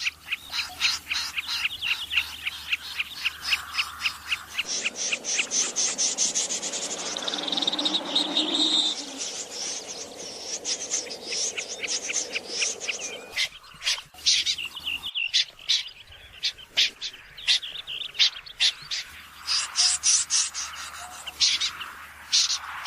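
Many birds calling at once in quick series of short, sharp chirps, a playback lure mix of migratory wading and water birds. From about five seconds in to about thirteen seconds a denser, hissing wash of calls lies under the chirps.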